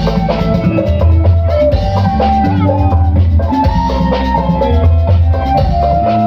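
A small live band plays an instrumental passage without vocals. A keyboard carries a melody of held notes over a steady bass line and a drum kit beat.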